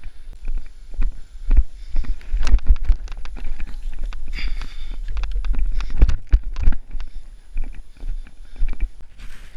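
A runner's footsteps on grass and a dirt trail: an irregular string of thuds and knocks picked up by a body-worn action camera, over a steady low rumble on the microphone.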